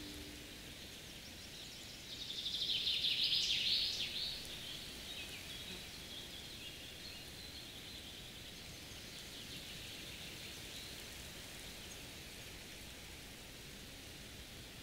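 Faint forest ambience: a high, rapid trilling, louder for about two seconds a couple of seconds in, then continuing softly over a steady hiss.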